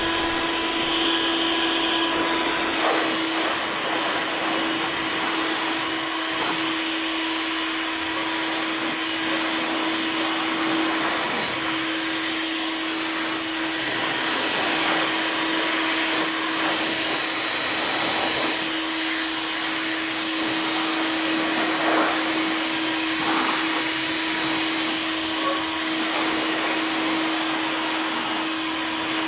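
60-volt cordless electric leaf blower running on its turbo setting: a steady motor whine over rushing air. The air noise swells and eases a little as the nozzle is swept over the bike, loudest about halfway through.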